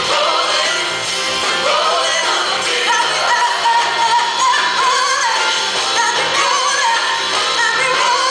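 Live band performing a song: several vocalists singing together into microphones, backed by electric guitar and drums.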